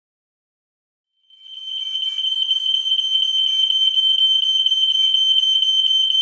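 Ceiling-mounted mains-wired smoke alarm sounding its alarm while its test/reset button is held down: a loud, steady, shrill high-pitched tone that starts about a second in and quickly builds to full level.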